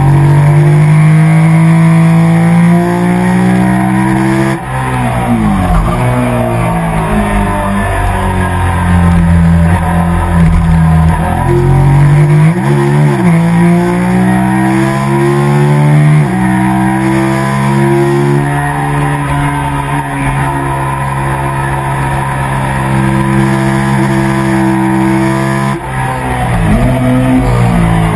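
Sport motorcycle engine running hard under the rider, its pitch falling and climbing again through the corners about 5, 13 and 26 seconds in.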